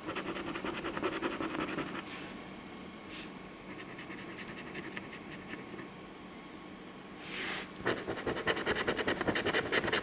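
A penny scratching the coating off a lottery scratch-off ticket in quick, rapid strokes: one run for the first couple of seconds, then quieter, then a second run starting about seven seconds in.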